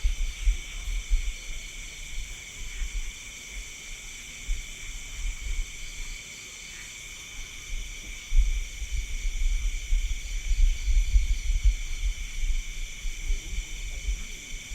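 A steady chorus of night insects trilling in several high pitches. Irregular low rumbles come and go, heaviest in the second half, and they are the loudest thing present.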